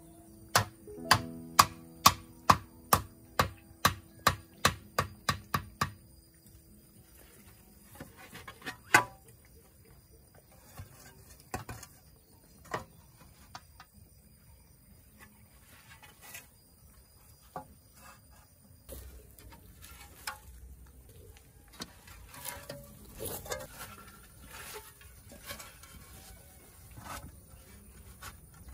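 Knife chopping on a cutting board in a steady run of sharp strokes, about two or three a second, stopping about six seconds in. After that come scattered lighter knocks and clatter of kitchen utensils.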